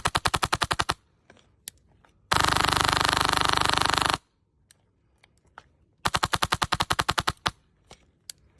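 Airsoft rifle firing full-auto bursts: one burst ends about a second in, a faster, denser burst runs from about two to four seconds, and another from about six to seven and a half seconds, with a few single shots between.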